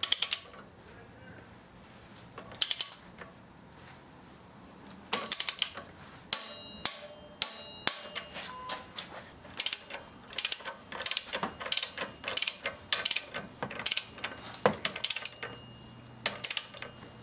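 Ratchet wrench clicking in short runs as the camshaft sprocket bolts are tightened down to torque with the camshaft holder tool in place. There is a brief burst of clicks about two and a half seconds in, then repeated clicking from about five seconds on.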